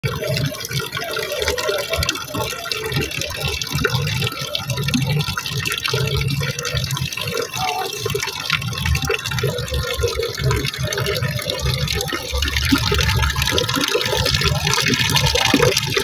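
Fountain water falling in a thin stream from a statue's pot into the basin below, splashing continuously.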